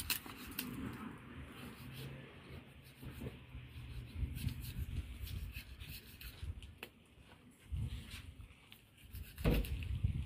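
Knife cutting and scraping along a tuna's back through skin and flesh: irregular soft rubbing with small clicks, as a strip of fin and meat is worked loose by hand. A low thump comes near the end as the fish is handled.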